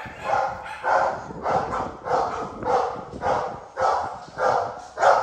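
A dog barking steadily and rhythmically, about nine barks at an even pace of nearly two a second.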